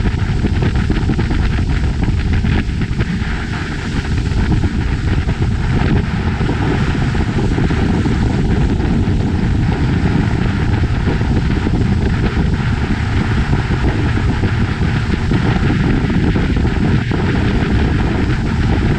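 Motorboat running at speed across open water: a loud, steady drone of the engine mixed with wind noise on the microphone.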